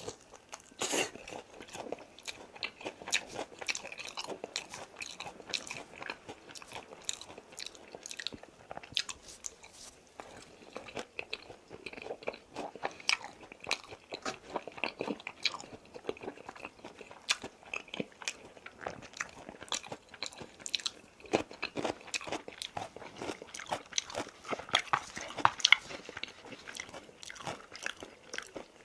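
Close-up chewing of crispy boneless fried chicken: repeated crisp crunches and wet mouth sounds, at their loudest a few seconds before the end.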